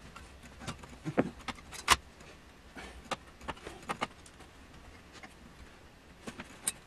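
Irregular metallic clicks, clinks and knocks from hands and tools working on the opened metal chassis of a power supply unit, loudest a little under two seconds in.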